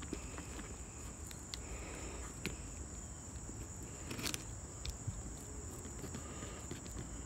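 Wiss utility knife blade scraping and clicking as it slices through plastic wrap along the edge of a cardboard box, in scattered faint ticks over a steady high-pitched whine.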